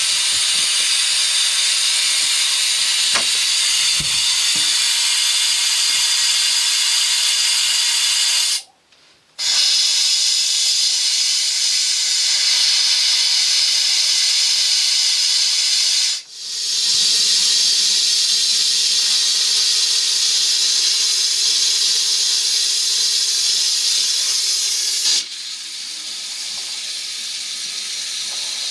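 Compressed air hissing steadily out of an RV's water lines as the plumbing is blown out for winterizing. It cuts out briefly about nine seconds in, dips again around sixteen seconds, and turns quieter about twenty-five seconds in.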